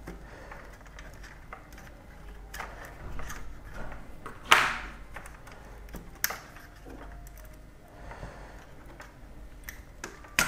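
Small clicks and scrapes of fine metal tweezers prying at the plastic locking arms of an instrument-cluster needle stepper motor, with a sharper click about four and a half seconds in.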